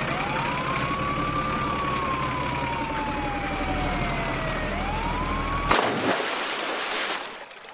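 A siren wailing, with one tone that rises, falls slowly and rises again, over a steady low engine hum. Both cut off about six seconds in by a loud splash as a toy crane truck drops into water.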